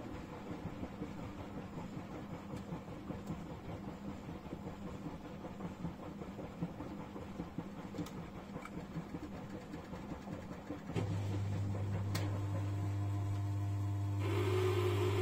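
1994 Bompani BO27027 front-loading washer-dryer in its wash cycle, the drum turning the laundry through soapy water with a sloshing, churning noise and a few light clicks. About eleven seconds in, a louder steady low hum starts and carries on.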